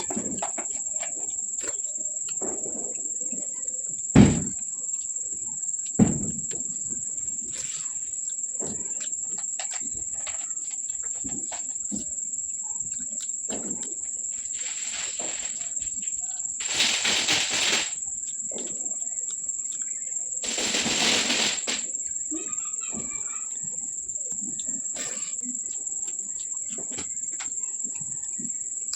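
Close-up eating sounds: small clicks and mouth noises, two sharp knocks about four and six seconds in, and two longer noisy stretches past the middle. A steady high-pitched whine runs underneath throughout.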